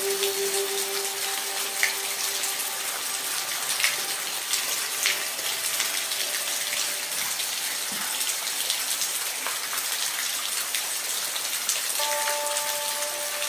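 Steady rain falling, with scattered sharper drop ticks over an even hiss. Soft held music tones fade out in the first few seconds and come back near the end.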